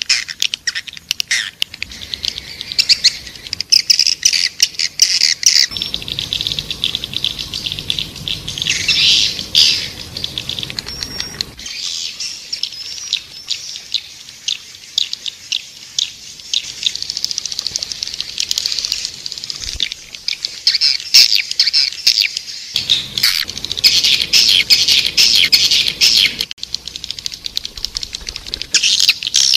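Swiftlets calling in a dense, continuous chatter of rapid chirps and clicks: a recorded swiftlet lure call of the kind played to draw swiftlets into a nesting house. The background noise under the birds switches abruptly several times, as where recordings are spliced together.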